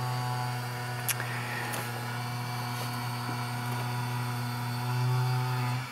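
A neighbour's motorised machine running with a steady low hum that swells a little near the end, then drops away sharply.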